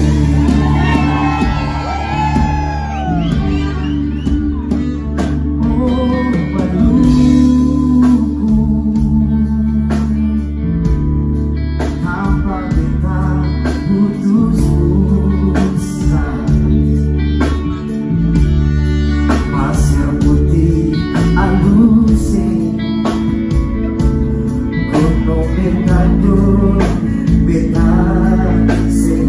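Live band music: singing over guitar, with a strong, continuous bass.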